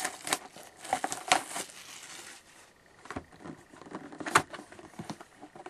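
Trading cards and pack wrappers being handled: scattered crinkling and sharp card clicks, the loudest click about four and a half seconds in.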